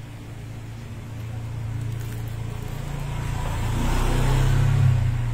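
A motor vehicle passing close by, its engine hum growing louder to a peak about four to five seconds in, then starting to fade.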